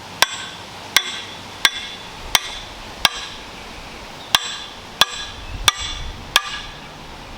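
Hammer striking the bottom end of a wooden axe handle nine times, sharp blows about two-thirds of a second apart with a brief pause midway, driving a double-bit axe head up onto the handle's tight eye.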